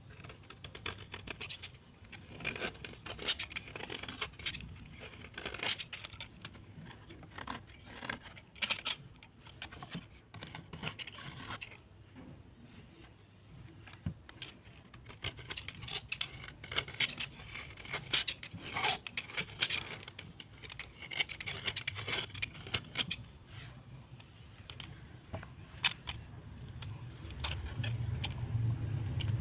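Irregular scraping and scratching strokes, hard material rubbed and scraped, with a low rumble building near the end.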